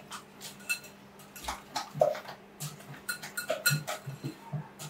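Wire whisk mixing egg and sugar for pudding custard in a glass bowl, its wires clicking and scraping against the glass. The strokes are sparse at first and come quicker and more regularly in the last two seconds.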